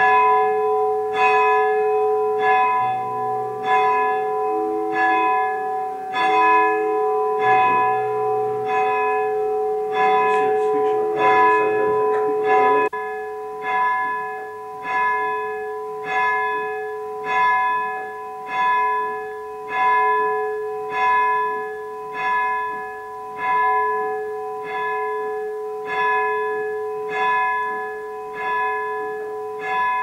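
A single church bell rung by its rope, struck steadily about once every 1.2 seconds, each stroke ringing on into the next, heard from the ringing chamber below. Other, lower tones sound along with it until a little under halfway through.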